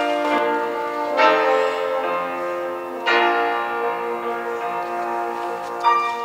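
Classical music for French horn and piano: held notes over piano chords, with fresh chords struck about a second in and again about three seconds in.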